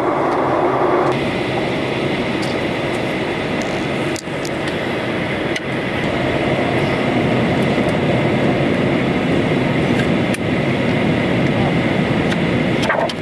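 Steady roar of a jet airliner in flight, heard inside the passenger cabin: engine and airflow noise.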